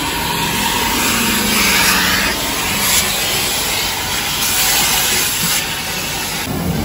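Car wash hose vacuum running, its suction making a steady rushing hiss that brightens for a moment twice as the nozzle is worked over a leather back seat.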